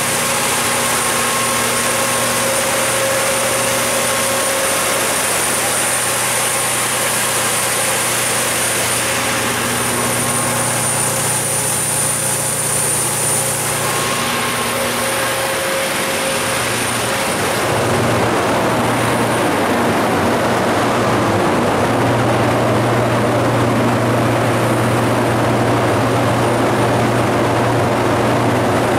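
Kohler 125RZG natural gas generator set, its GM 8.1-litre V8 engine running steadily with a constant hum. About eighteen seconds in the sound grows louder and fuller.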